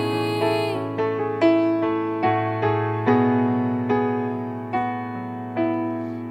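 Slow, soft keyboard music: single piano-like notes and chords struck one after another, each left to ring and fade.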